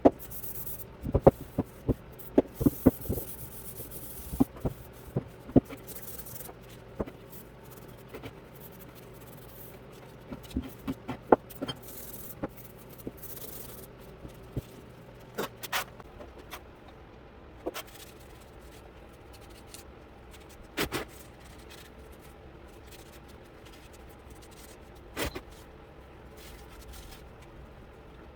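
Steel vise parts being handled and worked: irregular sharp clicks and knocks with some scraping, thickest in the first few seconds and again near the middle, then only a few scattered knocks. A faint low hum stops about halfway through.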